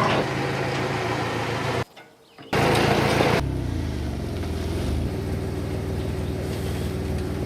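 An engine running, heard in two stretches with a short gap about two seconds in. In the second stretch the engine note drops, then runs on steadily.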